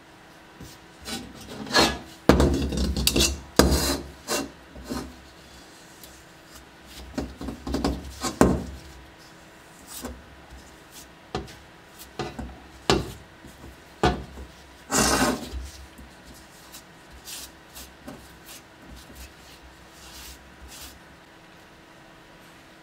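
Plastic spreader scraping body filler over the pitted steel shell of a German M16 Stahlhelm in irregular strokes. The strokes are loudest a couple of seconds in and again about 15 seconds in, then fainter.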